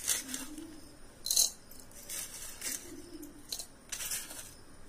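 Crushed Oreo biscuit being tipped and scraped from a steel bowl into drinking glasses: a series of short scrapes and clinks of metal against glass, about half a dozen, the loudest about a second in.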